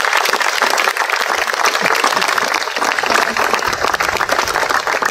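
A small crowd applauding: dense, steady handclapping.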